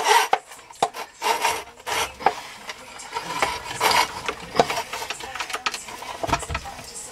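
Drain snake's cable being fed by hand into an opened kitchen sink drain pipe, scraping and rasping against the pipe in short, irregular strokes.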